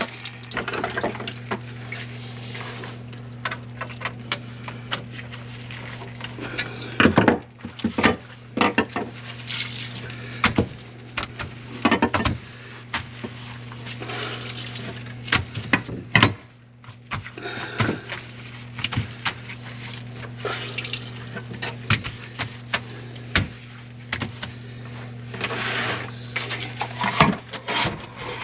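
Steady electric motor hum of a drain-cleaning cable machine, with irregular knocks and clatter and water splashing in the sink, as a kitchen drain line plugged with grease is cleared.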